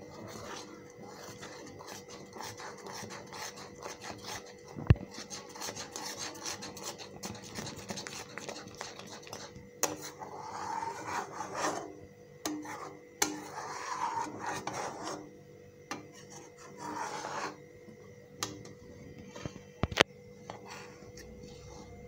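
A spatula scraping around the bottom and sides of a kadai as boiling milk is stirred continuously, in repeated strokes, with a few sharp knocks of the spatula against the pan. The constant stirring keeps the thickening milk from sticking and burning.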